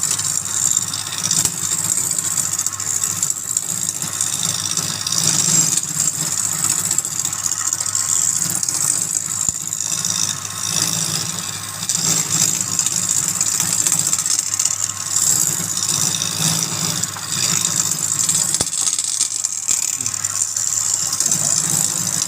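Wood lathe running with a turning tool cutting the spinning wood: a steady motor hum under a fluctuating scraping hiss.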